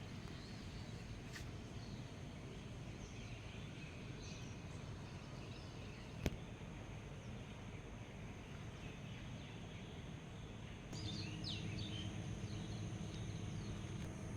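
Faint morning outdoor ambience: a low steady hum with scattered faint bird chirps. A single sharp click comes about six seconds in, and near the end the hum grows a little louder with a short flurry of bird calls.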